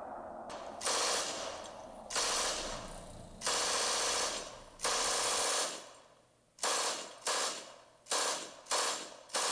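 A series of sudden, harsh bursts of hissing noise. Four come first, each lasting about a second and fading out. Then five shorter ones follow in quicker succession.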